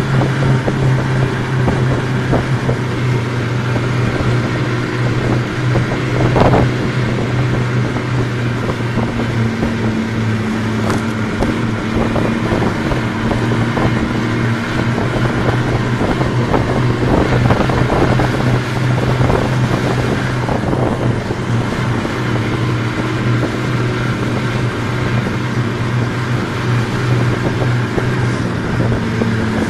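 Snowmobile engine running steadily at cruising speed, heard from the rider's seat.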